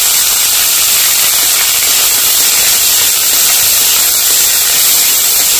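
Finely chopped cauliflower florets sizzling steadily in hot mustard oil in a kadai: a loud, even hiss of frying.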